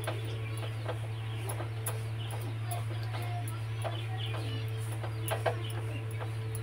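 A spatula stirs and scrapes crumbly flour and ghee in a metal kadhai as the flour roasts on a low flame, making scattered light scrapes and taps. A steady low hum runs underneath.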